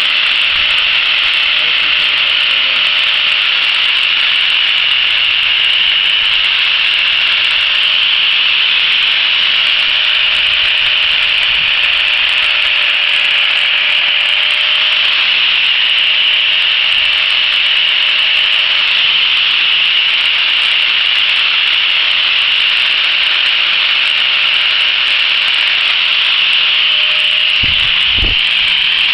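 Angle grinder with a sanding disc running steadily against a purpleheart wood handle, sanding and shaping it: a continuous high-pitched grinding hiss over a thin steady motor whine. Near the end there are a few low knocks as the grinder is lifted off the work.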